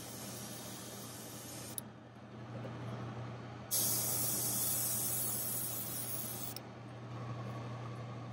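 Airbrush spraying paint in two bursts, a softer one ending about two seconds in and a louder one from about four to six and a half seconds, over a steady low hum.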